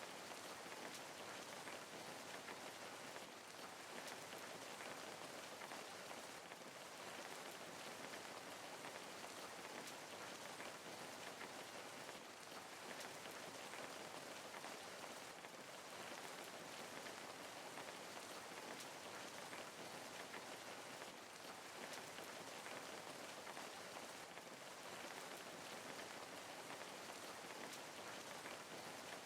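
Steady rain falling, an even hiss of drops pattering on a surface, with no breaks or changes.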